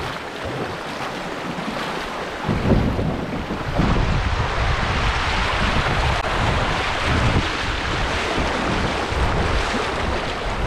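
Rushing water of shallow creek rapids around a kayak, with wind buffeting the microphone in low gusts from a couple of seconds in.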